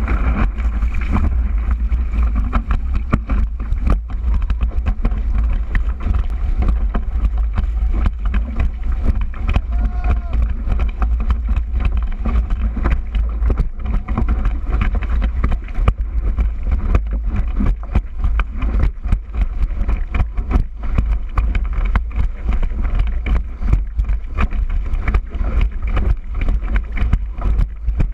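Wind buffeting hard on a board-mounted action camera's microphone while a kitesurfing surfboard planes fast over choppy water, with water rushing and spraying past and many sharp knocks and splashes from the board hitting chop.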